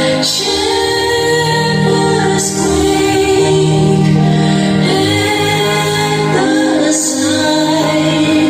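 Background music: a song with a female singing voice over instrumental backing with a steady pulse.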